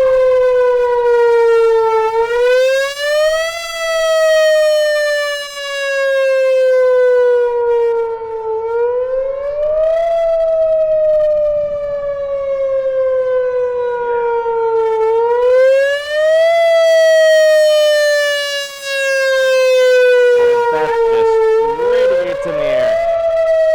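Outdoor warning siren sounding a wail during its test: one steady tone that rises over about a second and a half, then falls slowly for about five seconds, the cycle repeating about every six and a half seconds.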